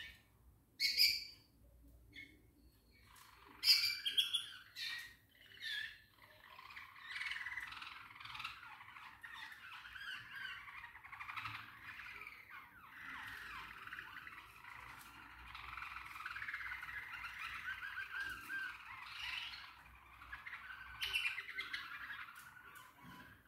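Small caged pet birds calling: a few loud, sharp squawks in the first six seconds, then busy, continuous chattering and warbling.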